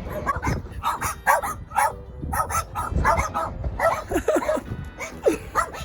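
Three dogs barking over and over at a person, short barks coming one after another throughout.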